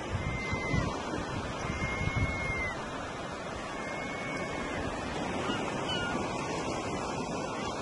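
Steady noise of surf washing on a sandy beach, with wind buffeting the microphone in gusts during the first second or so. Faint, high, short downward-sliding calls come in over it from just past the middle.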